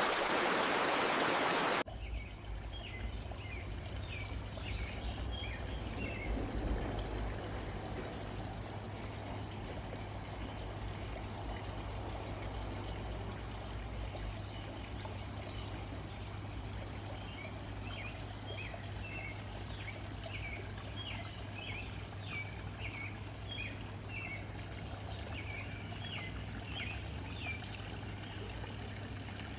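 A stream of water trickling, with small birds chirping in short bursts, some early on and more in the second half. A louder rush of water cuts off abruptly about two seconds in.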